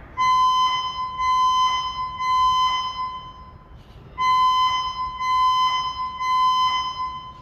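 Electronic building emergency alarm sounding a steady high-pitched tone in groups of three pulses, each about a second long, with a short pause between groups, twice. This is the temporal-three evacuation pattern.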